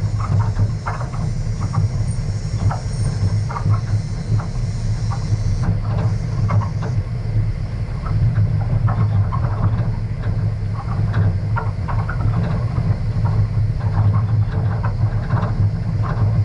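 A vehicle driving over a rough gravel dirt track: a steady low engine drone under constant irregular rattling and crunching from the bumps and stones.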